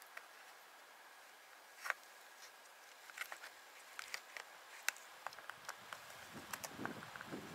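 Scattered light clicks and ticks of small electrical connector pins and hand tools being handled at an open plastic parts organiser. Soft handling rustle joins from about five seconds in.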